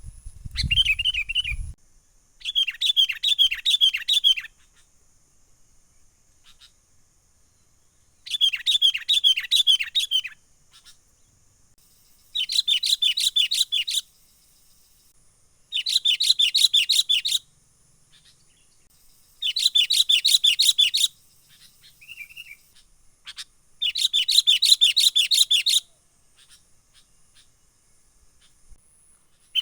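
Sooty-headed bulbul (kutilang) giving its agitated 'menggaruda' chatter: about seven bursts of rapid, repeated notes, each lasting one and a half to two seconds, with short pauses between.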